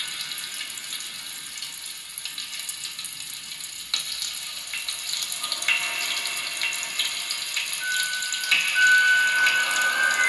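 Fizzing, crackling noise made by amplified kitchen objects, a dense patter of tiny clicks. About halfway through, steady high electronic tones come in and grow louder.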